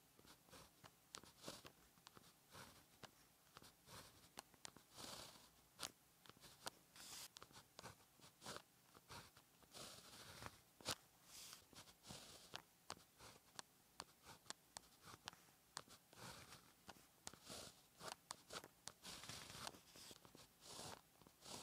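Pen tip scratching on paper as Chinese characters are written stroke by stroke: quiet, short hissing strokes broken up by sharp little ticks.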